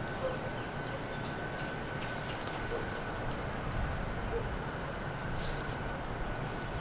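Outdoor woodland ambience: a steady low rumble with a faint, even high tone running under it and a few faint short chirps scattered through.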